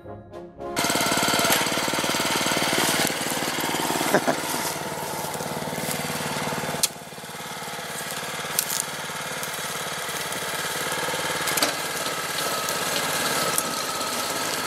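Small walk-behind tiller's engine running steadily as its tines churn through grassy soil, starting about a second in, with a few sharp knocks along the way.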